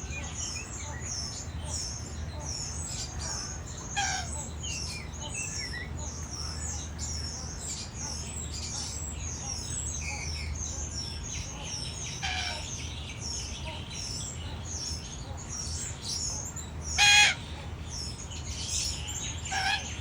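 Many birds chirping nonstop in high, quick notes, with a few louder harsh squawks from large parrots, the loudest near the end. A steady low hum runs underneath.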